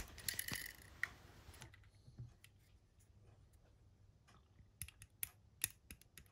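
Light, irregular clicks and taps of a brass clock movement being handled while its pinions are oiled from a plastic oil bottle. A soft rustle at the start, then scattered sharp clicks, more of them in the second half.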